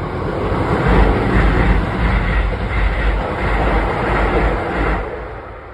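Electric commuter train on the Keisei line passing close by at speed: a loud, steady rush of wheels on rail over a deep rumble. It dies away quickly about five seconds in.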